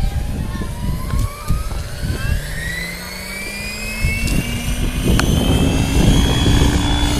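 Electric Align T-Rex 700 DFC radio-controlled helicopter spooling up on the ground: the motor and drivetrain whine rises steadily in pitch as the rotor head comes up to speed, over a low rumble, with one sharp click about five seconds in.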